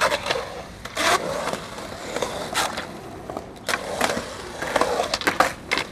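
Skateboard wheels rolling on smooth concrete in a skatepark bowl, a steady rolling noise broken by a handful of sharp clacks and scrapes from the board and trucks.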